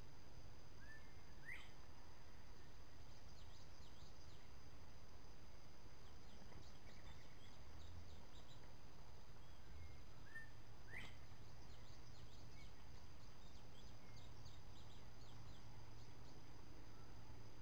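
Evening woodland ambience: a steady high-pitched insect drone, with a bird's short rising call twice, about a second and a half in and again about eleven seconds in, and scattered faint chirps.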